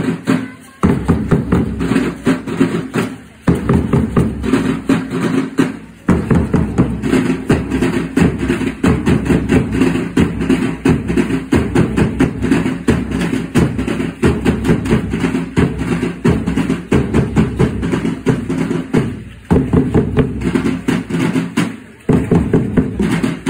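A drum group of large bass drums and snare drums beating a fast, steady dance rhythm, dropping out briefly a few times.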